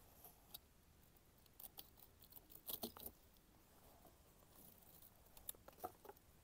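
Faint rustling and crinkling of packaging as bare-root rose seedlings are handled and unwrapped, with a few sharper crackles about three seconds in and again near the end.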